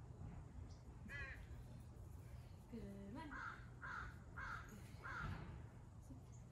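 A crow cawing four times in quick succession, about half a second apart, faint in the distance.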